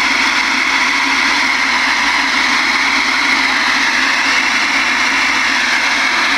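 Steady loud hiss of AM receiver static from the General Stonewall Jackson ten-meter base radio's speaker, with the volume turned up and no station coming through.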